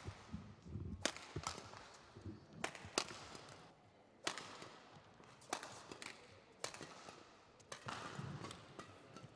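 Badminton shuttlecock struck back and forth with rackets, a sharp crack about once a second, with footsteps thudding on the court.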